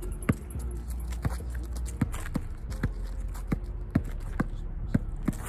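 A basketball being dribbled on an asphalt court: about ten sharp bounces at an uneven pace of roughly two a second.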